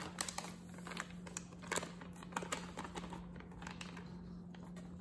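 Plastic bag of tapioca starch crinkling as it is squeezed and shaken empty over a stainless steel mixing bowl, with scattered sharp clicks and taps, the loudest about a quarter second in and near two seconds in. A faint steady hum runs underneath.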